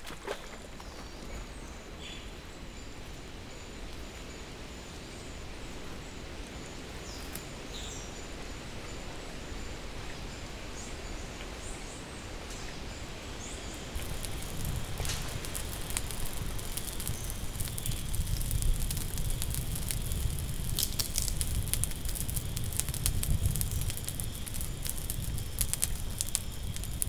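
A soft steady hiss of outdoor ambience with a thin, steady high tone. About 14 seconds in it switches to a louder wood fire crackling and popping, with a low rumble underneath.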